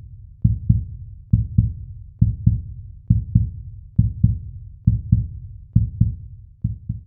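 Heartbeat-style intro sound: low double thumps, lub-dub, repeating evenly a little faster than once a second, eight pairs in all, then it stops abruptly.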